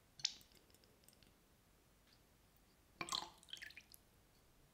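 A small clink of the glass carafe against a metal measuring spoon as vinegar is poured, then a short trickle and splash of vinegar about three seconds in.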